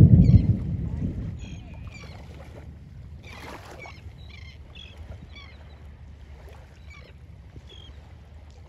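Wind buffeting the microphone, loudest at the start and dying away within the first second and a half. After that, wind and water noise stay low and steady under many short, high calls of birds over the water, with one harsher rasp about three and a half seconds in.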